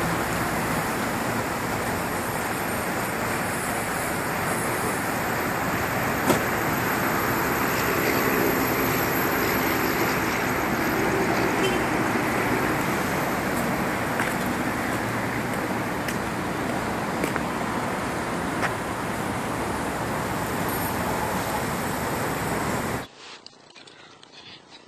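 Steady loud roar of road traffic noise, which cuts off suddenly about 23 seconds in.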